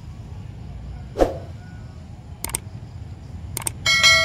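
Subscribe-button animation sound effect: a couple of clicks, then a bell chime that rings out and fades near the end, over a steady low outdoor rumble. A brief loud sound about a second in.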